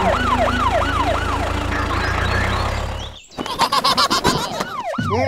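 Siren sound effect in a yelping pattern: a pitch sweep falling over and over, about three a second, over a steady low hum. About three seconds in it breaks off, a quick run of clicks and taps follows, and the falling sweeps start again near the end.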